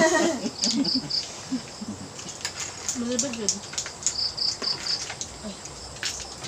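An insect chirping in two short runs of high, evenly spaced pulses, three and then four, with faint voices and scattered clicks beneath.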